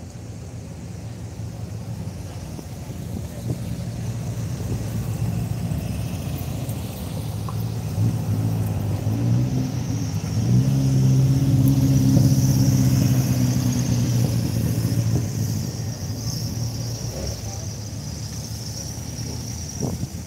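Air-cooled VW Beetle engines running at low revs in a pit lane. The engine sound swells about halfway through as one car runs close, then eases off.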